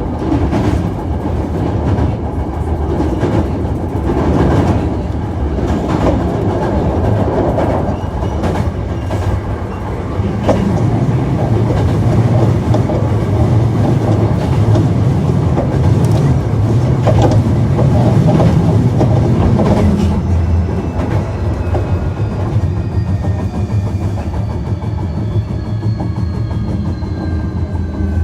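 Onboard running sound of a Hankyu 1300 series electric train: steady rumble of the wheels with repeated clacks over rail joints and points. Near the end the Toyo IGBT VVVF inverter and traction motor whine slides down in pitch as the train slows.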